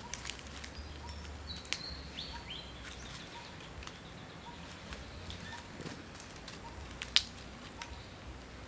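Outdoor ambience: a low steady rumble with scattered sharp clicks, a short stepped chirping call about two seconds in, and one louder click about seven seconds in.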